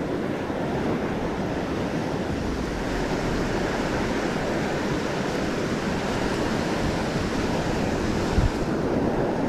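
Ocean surf washing steadily, with wind rumbling on the microphone. A brief low thump comes near the end.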